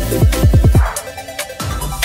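Electronic background music with deep bass kicks that fall in pitch. A quick run of them comes near the start, then the bass drops out about a second in.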